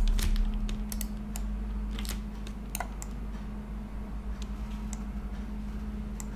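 Scattered clicks of a computer keyboard and mouse, a few separate keystrokes and button presses, over a steady low hum.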